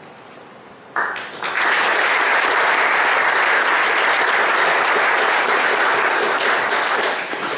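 Audience applauding, starting suddenly about a second in and tapering off near the end.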